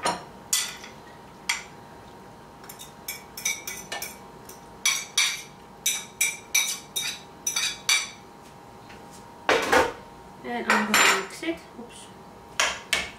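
Metal cutlery clinking and scraping against a ceramic plate and bowl as grated cucumber is scraped off the plate and stirred into a yogurt dressing: irregular clusters of short, sharp clinks.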